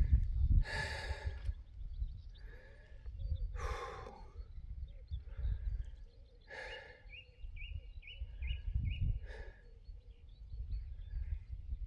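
A hiker breathing hard while climbing a steep hill, with four loud, heavy out-breaths a few seconds apart: out of breath from the climb.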